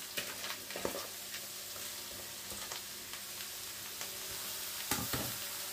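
Chopped shallots and garlic sizzling steadily in a little oil in a wok as sliced mushrooms are tipped in from a plastic bowl. A few light knocks come near the start, about a second in, and near the end.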